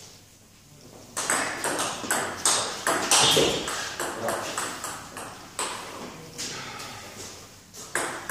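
Table tennis rally: the ball clicks sharply off the paddles and bounces on the table a few times a second, starting about a second in.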